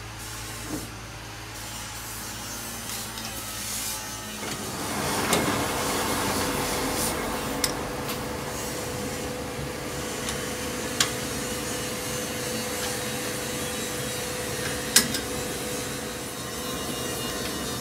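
Steady workshop machine noise with a rasping, rubbing character that grows louder about four seconds in, with a few sharp metal clinks as a gear is clamped in a lathe's four-jaw chuck with a chuck key.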